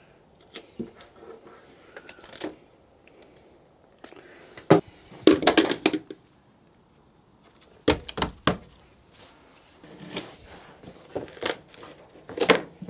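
Work noises from cutting and laying cork sheets on a van's bare ribbed steel floor: scattered knocks, scrapes and clicks, in louder clusters about five seconds in, about eight seconds in and near the end.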